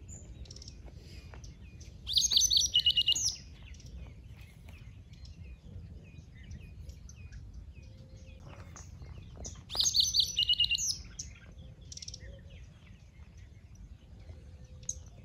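Songbirds singing: one song phrase, a quick run of falling whistled notes, rings out loudly twice, about two seconds in and again about ten seconds in, with fainter scattered chirps of other birds in between over a low steady background.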